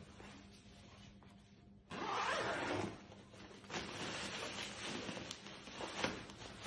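Fabric carry bag being pulled off a rolled, plastic-wrapped Wakefit memory foam mattress. About two seconds in there is a loud scraping burst lasting about a second, then uneven rustling and scraping of fabric and plastic with small clicks.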